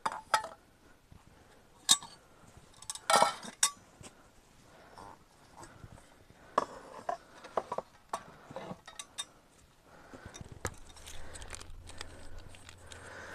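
Scattered clinks and knocks of kitchenware and metal mugs being handled, with a cluster of clatter about three seconds in and several more sharp clinks later. A faint low hum sets in near the end.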